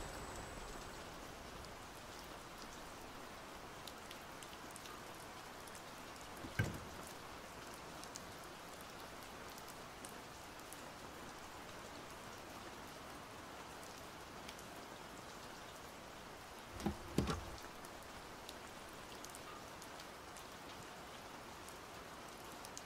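Steady rain falling on a wet surface, with scattered small drop ticks. A dull thud sounds about a third of the way in, and two more come in quick succession about three-quarters of the way through.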